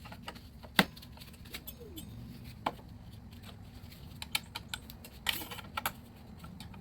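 Small tap hammer lightly tapping on scooter brake parts: a few irregular sharp taps, the loudest about a second in, then a cluster of lighter ticks later on.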